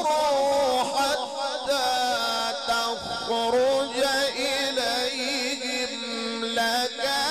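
A man's voice in melodic Quran recitation, holding long, ornamented notes that waver and bend in pitch without a break.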